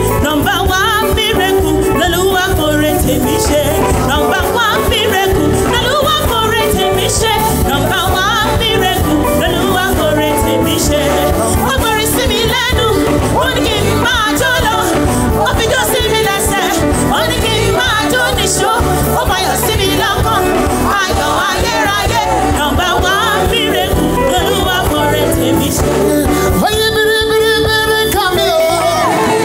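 Gospel praise music: singing voices with instrumental accompaniment, at a steady loud level throughout.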